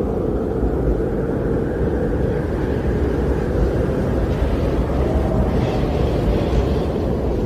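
Strong wind blowing steadily, a deep, rumbling rush with small surges in strength. A lighter, higher hiss rises over it in the middle and fades near the end.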